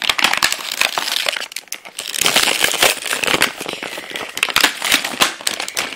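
Clear plastic blister packaging of a toy pack being handled and torn open, giving a loud, irregular run of crinkling and crackling.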